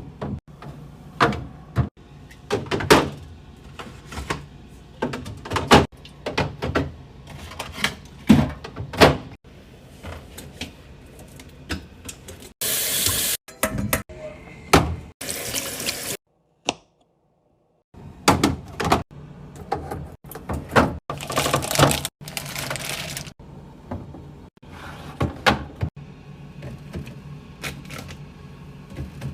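Kitchen tap running in short spells, among a string of knocks and clatters of food containers being handled and set down.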